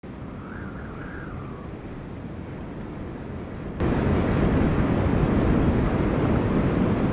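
Hurricane wind: a low steady rumble with a brief wavering high howl about half a second in, then, about four seconds in, a sudden jump to a loud rush of storm wind and driving rain buffeting the microphone.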